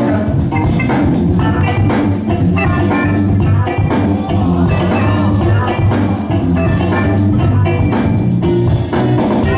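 Breakbeat music with a steady drum beat and bright pitched melodic sounds, played loud for a breakdance battle.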